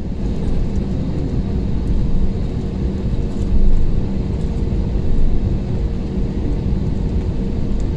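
Jet airliner rolling on the ground, heard from inside the cabin at a window seat over the wing: a steady, loud low rumble of engines and wheels with a faint steady hum.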